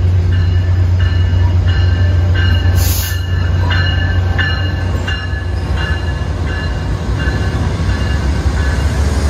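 Amtrak GE P42DC Genesis diesel locomotive and its passenger train pulling into a station: a steady low diesel rumble with short high metallic squeals from the braking wheels, repeating two or three times a second, and a brief sharp hiss of air about three seconds in.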